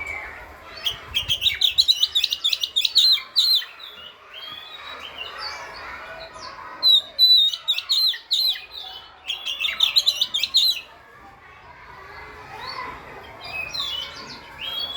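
Oriental magpie-robin singing in rapid, trilling phrases of quick repeated high notes, in three bursts: about a second in, around seven seconds in, and around nine and a half seconds in.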